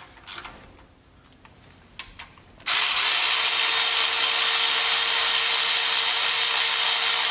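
A few light clicks, then about two and a half seconds in a cordless power ratchet starts and runs steadily with a constant whine, spinning out one of the 15 mm bolts that hold the serpentine belt tensioner to the water pump.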